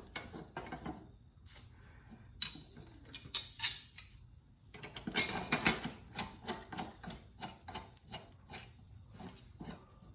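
Metal clinks and knocks from fitting a steel mower blade, washer and bolt back onto a Toro Recycler push mower's blade spindle. In the second half come quick regular clicks, about three or four a second.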